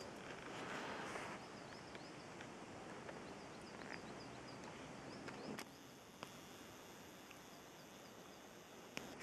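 Faint outdoor ambience with small birds chirping in quick repeated notes. A brief rush of noise comes in the first second or so, and a few sharp clicks later on.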